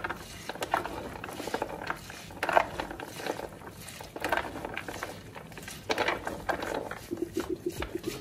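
Soaked brown beans rubbed and squeezed between wet hands in a plastic basin: a dense, irregular rattling clatter of beans knocking together, louder in bursts with each handful. The rubbing works the skins off the beans.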